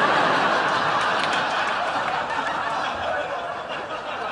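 Studio audience laughing: a steady wash of laughter that slowly fades.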